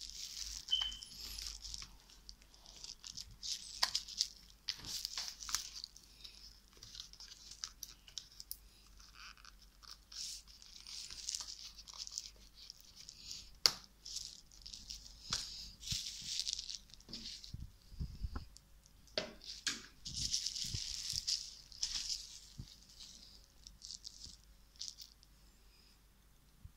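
Hands handling a laptop's battery and plastic case on bubble wrap as the battery is pushed back into place: irregular rustling and crinkling with scattered small plastic clicks and taps, one sharper click about halfway through.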